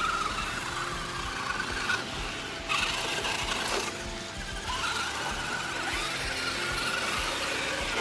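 Electric motors and geared drivetrains of 1/10-scale RC crawler trucks whining as they drive through a muddy puddle, the pitch moving with the throttle, with water splashing under the tyres.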